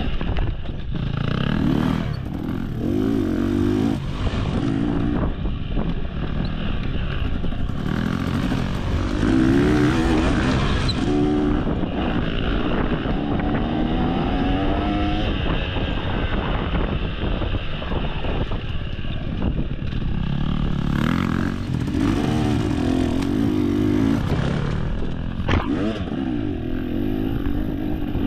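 Dirt bike engine revving up and down through the gears as it is ridden hard on a trail, its pitch rising and falling again and again.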